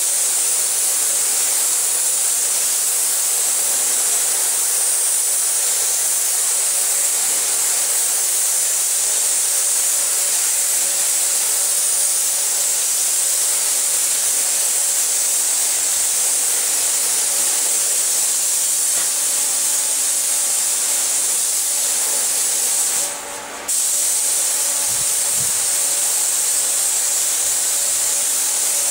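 Paint spray gun hissing steadily as paint is sprayed, with the hiss cutting out for about half a second once, roughly five seconds before the end, as the trigger is let go. A faint steady hum runs underneath.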